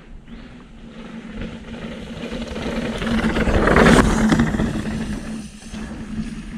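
Mountain bike rolling down a dirt trail, its tyres crunching over the ground. The sound swells to its loudest about four seconds in and then fades.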